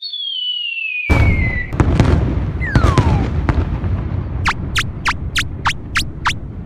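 Cartoon sound effects: a whistle falling in pitch, then about a second in a big explosion that keeps rumbling. Near the end comes a quick run of seven sharp high zips.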